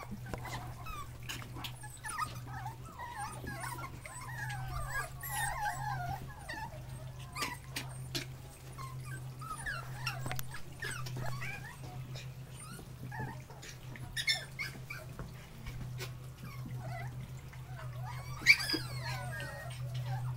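Seven-week-old Jack Russell terrier puppies whining, with many short high-pitched squeaks that rise and fall, over a steady low hum. A few sharp clicks sound through it, the loudest near the end.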